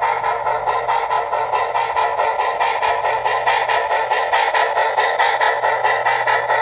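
Steam-exhaust chuffing from the sound decoder of an HO-scale RENFE 141F Mikado model locomotive, played through the model's small speaker: an even, rapid beat of about five chuffs a second over a steady low hum.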